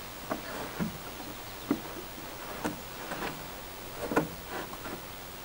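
Irregular light knocks and taps on wood, about half a dozen, the loudest about four seconds in, as a pine board is bumped up into position by hand.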